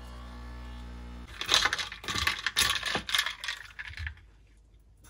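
Nespresso Pixie capsule machine's pump buzzing steadily as it brews, cutting off about a second in. Then about three seconds of light clinking and rattling.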